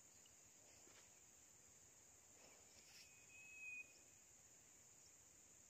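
Faint, steady high-pitched chirring of insects, with one brief thin whistle about three and a half seconds in.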